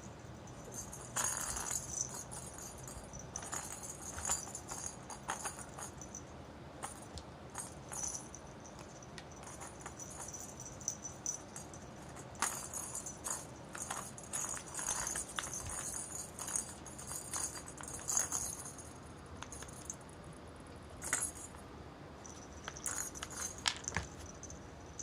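A cat toy's small bell jingling in irregular bursts, with light taps and clicks, as a kitten bats and wrestles with the toy.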